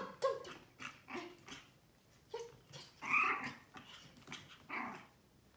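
Pomeranian puppy yapping and growling in play, a series of short, high-pitched yaps and growls with brief pauses between them.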